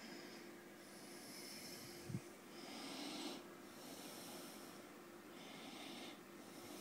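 Faint, close breathing of a person: soft hissy breaths coming and going every second or so, over a steady low hum. One dull bump about two seconds in.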